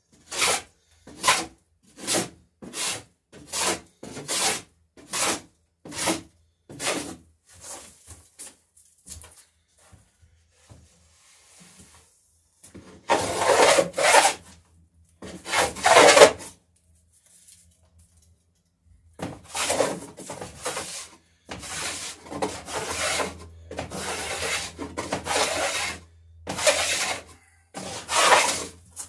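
Hand plane cutting shavings off a wooden garboard plank as its edge is beveled. There are quick, short strokes at first, then after a pause longer, heavier strokes.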